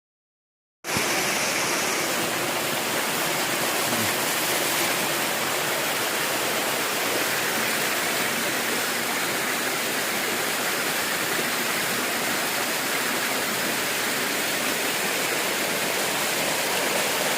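Waterfall pouring steadily, a constant rush of falling water that starts abruptly about a second in after silence.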